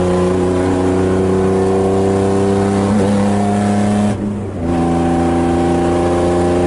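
BMW E36 325is inline-six pulling steadily under load with its pitch slowly rising. About four seconds in it briefly drops away for a gear change, then pulls again at a slightly lower pitch, as after an upshift.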